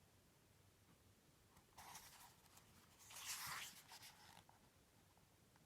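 Near silence broken by two faint paper rustles, a picture book's page being turned.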